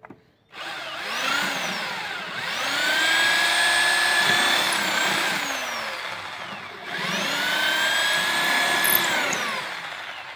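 Corded electric drill boring into a pine board. The motor spins up to a steady whine, slows and dies away about two-thirds of the way in, then runs up again and winds down near the end.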